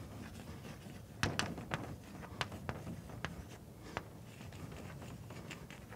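Chalk writing on a blackboard: a string of sharp chalk taps and short scratches as letters are written, loudest a little over a second in, over faint room hum.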